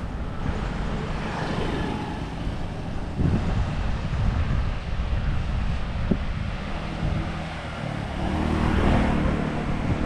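Road traffic outdoors: motor vehicles passing along the road, with one going by close and loudest about nine seconds in, over a steady low rumble.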